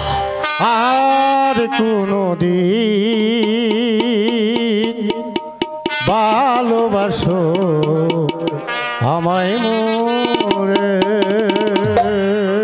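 Live jatra band music: a wavering melody with a quick, wide vibrato, played over drum strokes that come thickest near the start and in the last couple of seconds.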